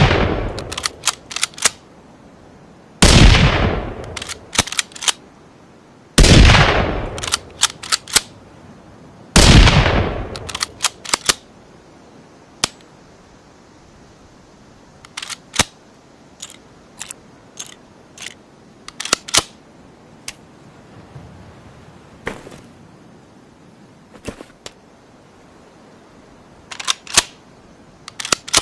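Rifle sound effect blending a Ruger American rifle and a rimfire rifle: three loud shots about three seconds apart, each ringing out and followed by a quick run of sharp clicks. From about halfway on there are no shots, only scattered sharp clicks.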